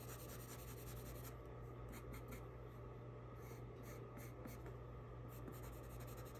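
Colored pencil scratching on paper in quick short strokes, shading fur. The strokes come in spells, with pauses about a second and a half in and again around four seconds in.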